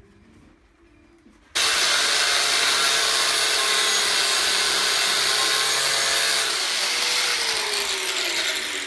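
Angle grinder starts about a second and a half in and grinds into the steel of a bicycle part held in a vise, running loud and steady. Near the end it comes off the work and its pitch falls as the disc slows down.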